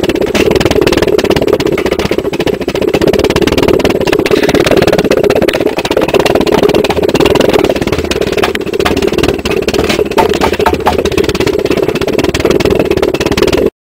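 Homemade jam-jar pulse jet burning methylated spirits, running with a loud, steady drone of rapid combustion pulses. It cuts off suddenly near the end.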